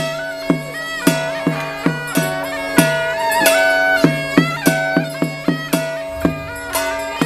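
Traditional ritual music: a reedy, bagpipe-like wind melody over a held drone, with percussion struck steadily about twice a second.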